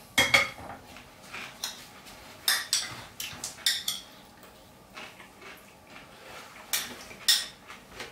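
Metal forks clinking and scraping against white ceramic bowls as salad is served and eaten: scattered short clinks in small irregular clusters, quiet in between.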